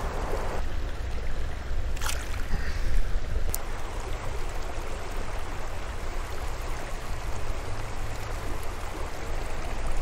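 Creek water rushing steadily over rocks below a spillway, with a couple of faint ticks about two and three and a half seconds in.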